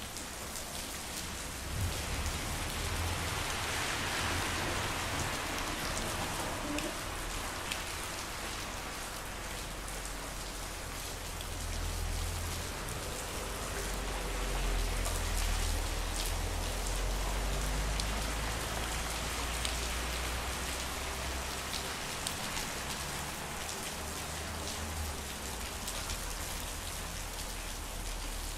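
Steady rain falling on a street, with many individual drops tapping close by. A low rumble swells and fades through the middle.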